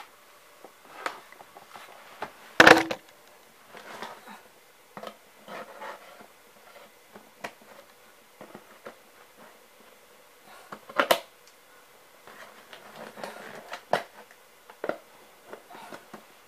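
Scattered handling noises: knocks, taps and rustles of things being moved about on the floor, with a loud thump about three seconds in and another sharp knock about eleven seconds in.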